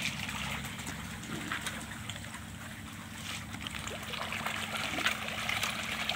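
Water bubbling and splashing in an aerated biofloc fish pond: air from the aeration hose bubbling at the surface and fish stirring the water, over a faint steady hum.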